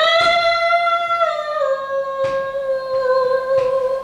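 A singer holds one long, high, wordless note in a vocal exercise. It steps down to a slightly lower pitch a little over a second in and is held steady after that, with a few faint ticks behind it.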